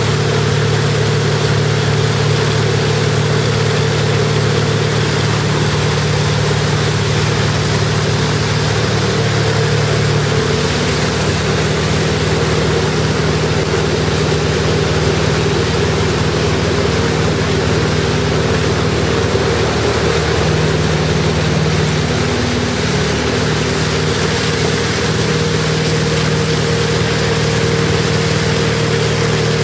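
A tow boat's engine runs at a steady drone over the rush of water and wind. Its pitch shifts slightly about ten seconds in.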